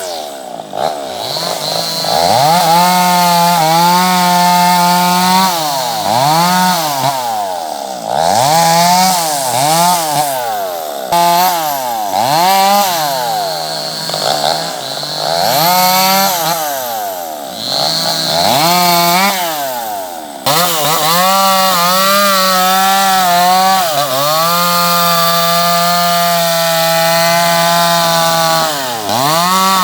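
Chainsaw engine revved up to full throttle again and again and let fall back, holding steady at full speed for several seconds at a time as it cuts wood.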